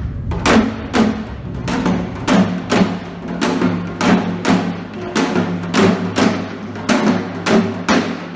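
Percussion music: drums struck in a steady beat of about two strokes a second, each stroke ringing briefly, over a low sustained tone.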